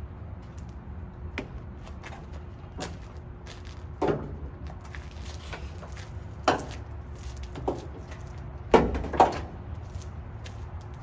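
Scattered knocks and thuds of objects being handled, about seven in all, the loudest a close pair near the end, over a steady low rumble.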